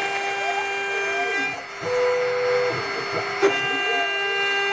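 CNC router milling duralumin, its spindle whining steadily at 24,000 rpm while the axis stepper motors sweep up and down in pitch as the table moves. About two seconds in the cutting sound dips briefly and a steadier higher tone holds for under a second; a sharp click comes about three and a half seconds in.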